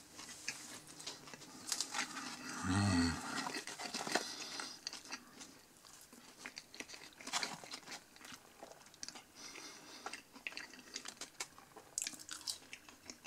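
A person chewing food close to the microphone: irregular wet mouth clicks and soft crunching, with a brief low hum of the voice about three seconds in.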